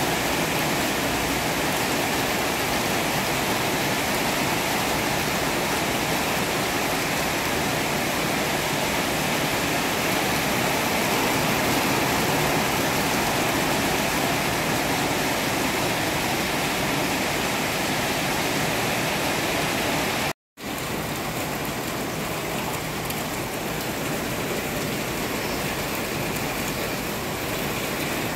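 Heavy tropical rain pouring down onto corrugated roofs: a dense, steady rushing hiss. It cuts out briefly about two-thirds of the way through, then resumes a little quieter.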